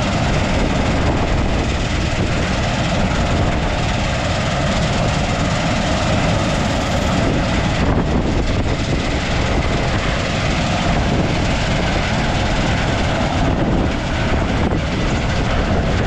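Steady, loud running of a farm vehicle being driven, its engine and moving noise unbroken throughout.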